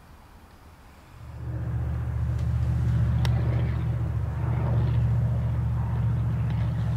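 A motor vehicle's engine running with a low, steady drone that comes in about a second in and holds; a single sharp click about three seconds in.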